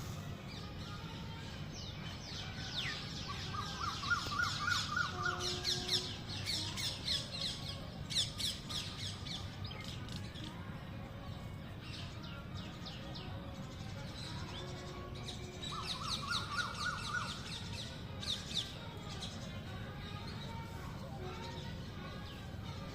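Small birds chirping in quick runs of high notes, busiest in the first half. A lower rapid trill comes twice, and a steady low hum runs underneath.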